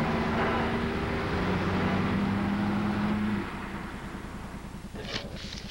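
A motor vehicle engine running steadily. It drops away about three and a half seconds in, leaving a faint rapid low pulsing, and a few sharp clicks come near the end.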